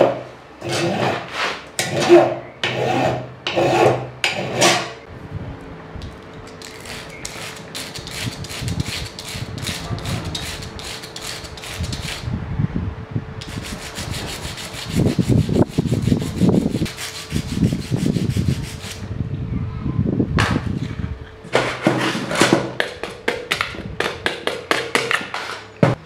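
Hand file rasping across the edge of a copper sheet clamped in a bench vise, in slow even strokes about one and a half a second. After a few seconds it changes to quicker back-and-forth rubbing on sandpaper, a steady scratchy hiss, and near the end short strokes come again.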